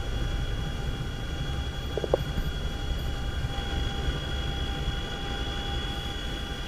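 CH-47F Chinook tandem-rotor helicopter in flight, heard from inside the cockpit: a steady low rumble with several steady high-pitched whines. A short gliding sound comes about two seconds in.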